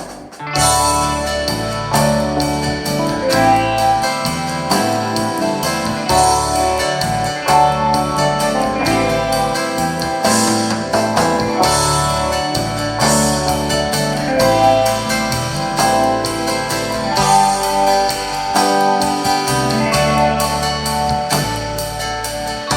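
Instrumental music with guitar, piano and bass, played through a Telefunken TA 350 amplifier and Soviet 10 MAS-1M loudspeakers and recorded from the speakers. A new piece starts just after a brief dip at the beginning.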